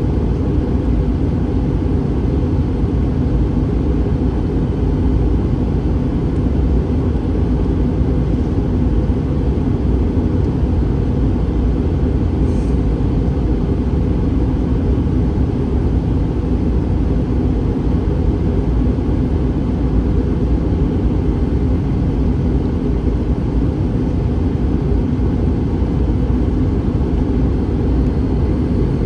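Steady low rumble of cabin noise inside an Airbus A321 airliner, holding an even level throughout.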